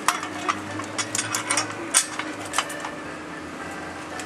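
Hand tools and metal parts clinking and knocking at irregular intervals during hands-on reassembly of a Ferguson 20 tractor, busiest in the first couple of seconds and then sparse, over a steady low hum.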